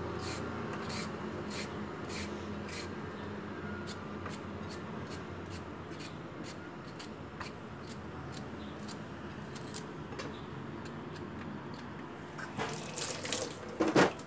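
A small knife scraping the skin off a carrot in quick repeated strokes, about two to three a second. Near the end come louder knocks as the peeled carrot is set down in a stainless steel bowl.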